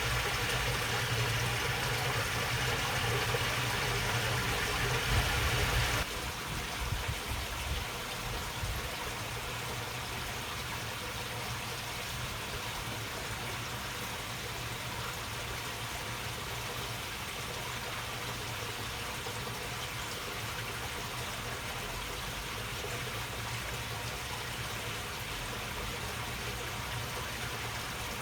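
Water flowing and trickling steadily along a narrow channel. It is louder for the first six seconds, then drops suddenly to a quieter, even flow.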